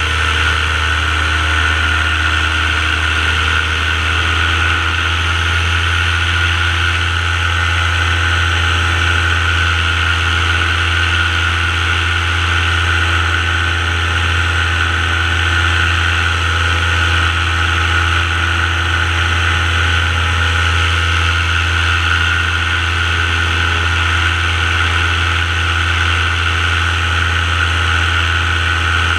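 Paramotor engine and propeller running steadily at constant throttle in flight, a continuous drone with a low hum and a higher buzzing whine.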